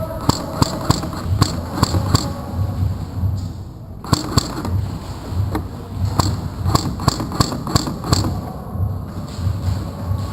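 Airsoft guns firing, heard as sharp snapping shots in short clusters of single shots and quick bursts, with a lull around the middle. Under them runs a low thump about twice a second.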